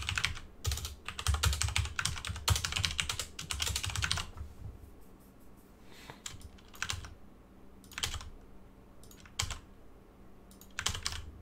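Typing on a computer keyboard: a quick run of keystrokes, thinning to a few single clicks in the middle, then another fast run near the end.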